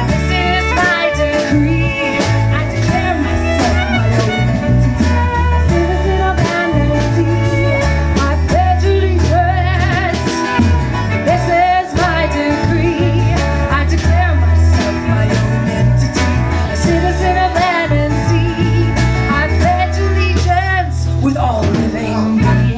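Live folk band playing: acoustic guitar, electric bass and violin with percussion, a strong bass line underneath and a wavering violin melody on top.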